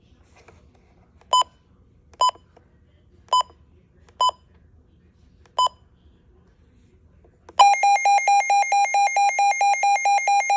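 Midland weather alert radio giving five short, spaced beeps, then, about two thirds of the way in, its loud alert alarm starts: a fast, evenly pulsing high tone, about four to five pulses a second, sounding as a test.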